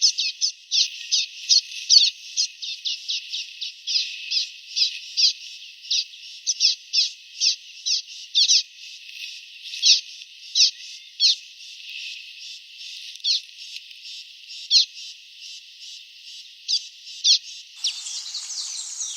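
Common waxbill chirping: a rapid, uneven run of short, high chirps, several a second, thinning out in the middle stretch. Near the end the sound turns fuller and noisier.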